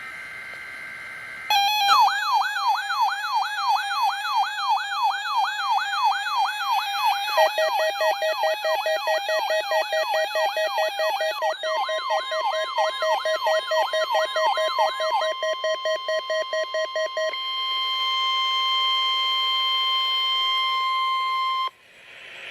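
NOAA Weather Radio weekly test tones. A brief SAME data burst, then weather alert receivers' alarms: a warbling siren sweeping up and down about three times a second, joined by rapid beeping. About halfway in, the steady 1050 Hz warning alarm tone comes on, holds for about ten seconds and cuts off shortly before the end.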